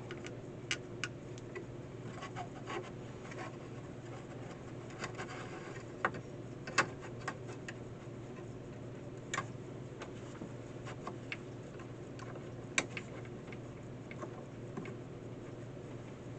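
Irregular light clicks and taps of small tools and parts being handled during repair work on a fence charger's circuit board, a few sharper clicks standing out, over a steady low hum.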